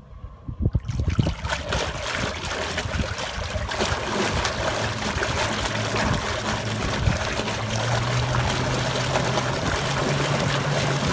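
Propeller of an electric-converted outboard motor churning water in a test barrel: a loud, steady rush of splashing and bubbling that starts about a second in, under a low motor hum that steps up in pitch about eight seconds in. This is the drive's first run under load.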